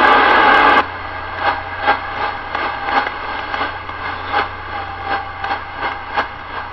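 CB radio speaker hissing with irregular crackles and pops of static between transmissions. A louder noise cuts off about a second in.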